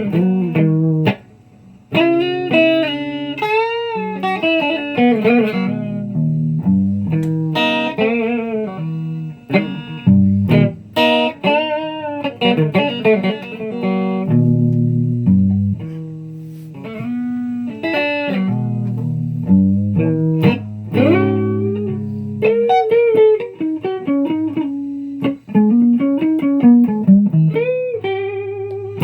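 Guitar music: a plucked guitar plays a run of notes, with a brief break about a second and a half in.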